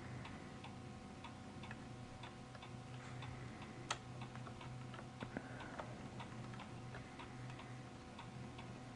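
Faint clock ticking steadily, about two ticks a second. A sharper click about four seconds in and a couple of smaller clicks just after.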